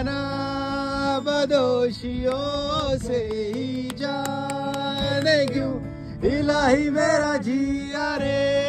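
Music: a man singing a Hindi song in long held, slowly bending notes over instrumental backing.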